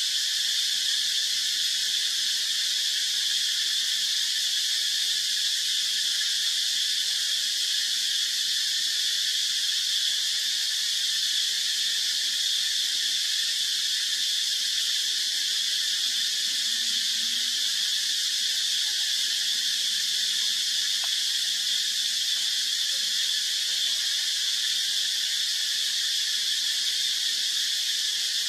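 Steady, loud, high-pitched drone of an insect chorus in the forest, unbroken and unchanging throughout.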